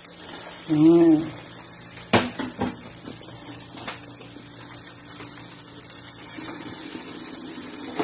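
A few sharp metallic knocks from a stainless steel cooking pot being handled with utensils, about two seconds in and again near four seconds, over a faint steady hum. A short hummed voice sound comes about a second in.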